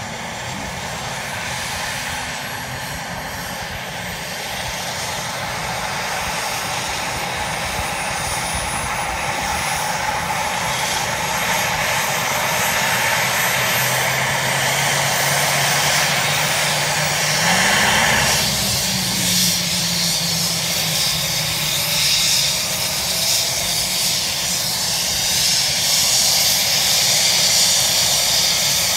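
Bell 429 air ambulance helicopter spooling up on the ground before take-off. Its turbine whine glides steadily higher in pitch while the engine and rotor noise grows gradually louder.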